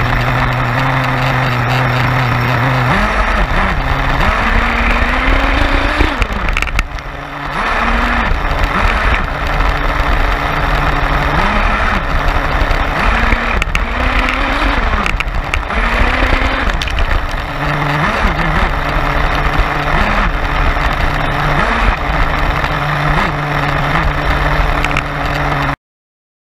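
Small engine of a radio-controlled monster truck idling steadily, then revving up and down again and again as the truck drives. The sound cuts off suddenly near the end.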